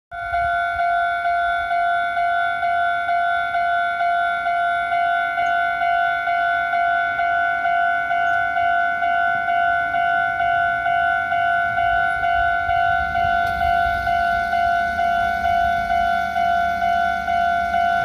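Japanese level crossing's electronic warning bell sounding from its pole loudspeaker: a single-pitched ding repeated evenly about two and a half times a second, the signal that a train is coming. A low rumble comes in about two-thirds of the way through.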